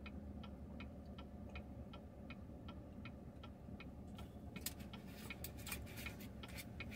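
Car turn-signal indicator ticking steadily at about three clicks a second. Scattered clicks and rustles come in over it in the second half.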